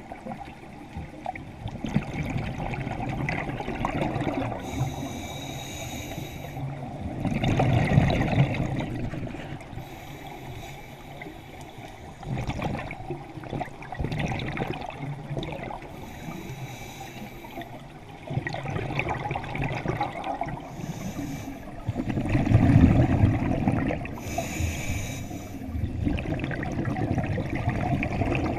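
A scuba diver breathing through a regulator underwater: a hissing inhale every few seconds, alternating with bubbling, rumbling exhales, the loudest about a third of the way in and again past the three-quarter mark.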